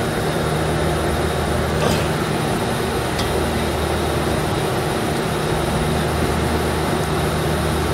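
Steady drone of running rooftop air-conditioning equipment: a low, even hum under a fan-like rush. A couple of faint metallic clicks come from pliers working the cap off the filter drier's access port.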